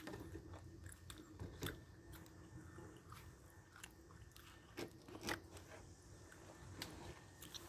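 A person quietly chewing and biting food close to the microphone, with a few sharp crunches.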